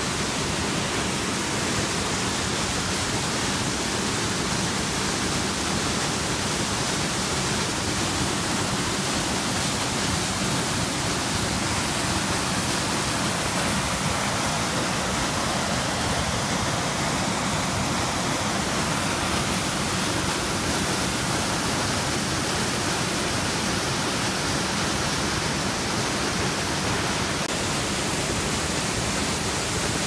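Sol Duc Falls, a waterfall splitting into several channels, pouring into its narrow rocky gorge: a steady, unbroken rush of water.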